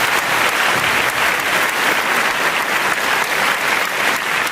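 Applause: many hands clapping together, steady and dense.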